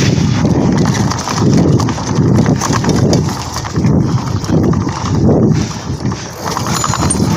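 Mountain bike clattering over a rough dirt trail: rhythmic thumps and rattles, about two a second.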